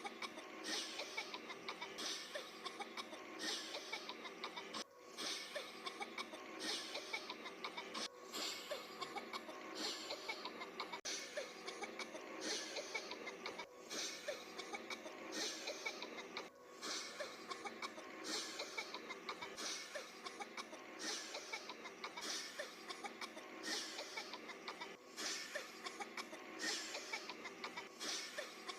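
Repeated short coughs, a little more than one a second, going on steadily without a break.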